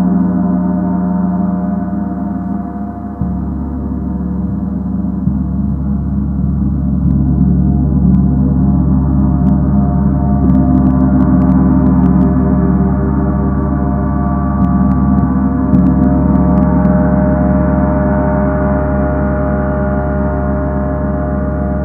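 A gong sounding in a continuous wash: a dense cluster of long, sustained, shimmering tones that slowly swells, freshly lifted by a new stroke about three seconds in.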